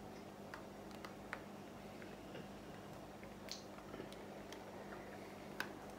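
Quiet room tone: a steady low hum with a few faint, short clicks scattered through, about four in all.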